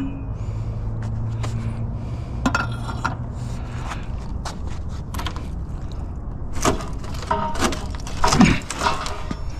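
Scrap metal being handled and loaded: scattered knocks, clinks and scrapes, with a cluster of louder clanks near the end. A low steady hum runs through the first few seconds.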